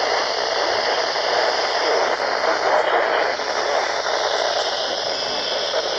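Steady hiss of heavy static on a NOAA Weather Radio broadcast received with a weak signal.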